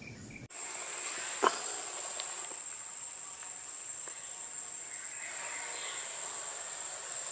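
Steady high-pitched insect chorus that starts abruptly, with a single sharp click about a second and a half in.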